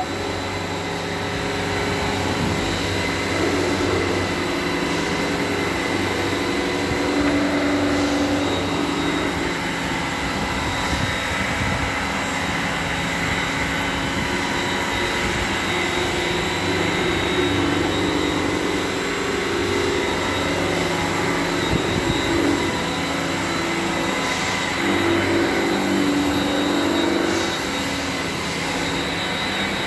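CNC milling machines running: a steady mechanical drone with several constant whining tones over it, and a lower hum that swells and fades every few seconds.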